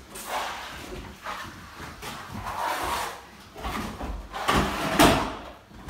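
Wide plastic plastering spatula sweeping over freshly sponged, creamy gypsum multi-finish plaster to flatten it, in a series of scraping swishes. The loudest comes about five seconds in.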